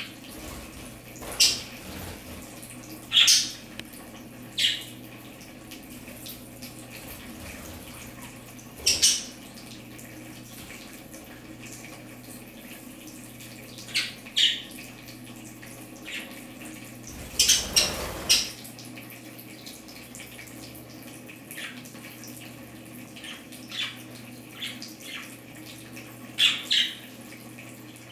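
Water trickling steadily from a bird-shower fountain onto lettuce in a bath tray, with a low steady hum underneath. Budgerigars give short sharp chirps every few seconds, with a louder flurry a little past halfway.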